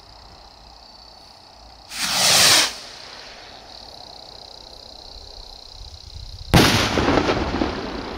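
Firework rocket (Funke Bomben Raketen) launching with a short rushing whoosh that falls in pitch. About four and a half seconds later comes a loud bang as its shell bursts, followed by a rumbling echo that dies away.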